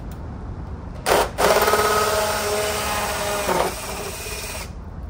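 Cordless drill spinning a hole saw in reverse against house siding to start a clean hole. A short sharp burst about a second in, then a steady motor whine over the scraping of the saw for about three seconds, stopping near the end.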